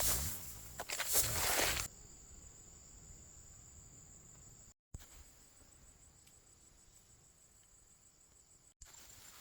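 Loud rustling, like steps and handling in dry vegetation, for about the first two seconds. Then a steady high-pitched insect trill over faint outdoor ambience, cut off briefly twice.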